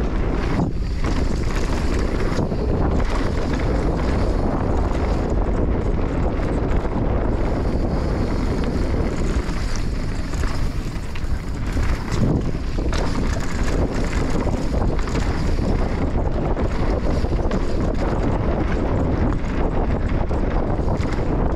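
Enduro motorcycle engine running under way, mixed with heavy wind noise on the microphone.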